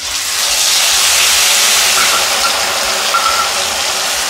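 Wet ground spice paste (onion, ginger, green chilli and tomato) dropped into hot oil in a kadai, bursting into a loud, steady sizzle all at once as it starts to fry.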